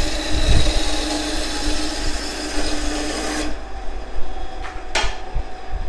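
MAF Pro benchtop band saw with a 550 W single-phase motor cutting through a block of hard, dry wood: a dense sawing noise over a steady hum. About three and a half seconds in, the cutting noise drops away as the blade comes through the wood, and the saw runs on more quietly, with a single knock near five seconds.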